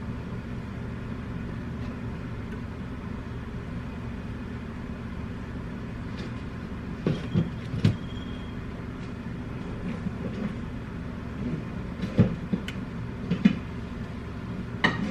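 A steady low hum runs throughout. Over it come several clanks and knocks of metal cookware being handled as a pot is set aside and a canner is put on the stove, in a cluster about halfway through and again near the end.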